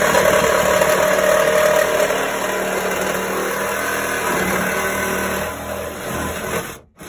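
Cordless reciprocating saw running steadily as it cuts through the car's sheet-metal floor pan, stopping suddenly near the end.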